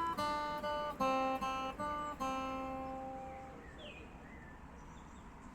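Background music: plucked acoustic guitar, a new chord about every half second, which rings out and fades after about three seconds, leaving a faint background with one brief high chirp.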